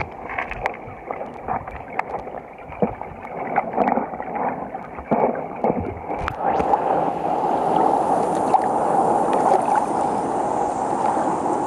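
Moving river water: splashing and gurgling with scattered knocks, dull and muffled at first. About six seconds in it gives way to a brighter, steady rush of flowing water.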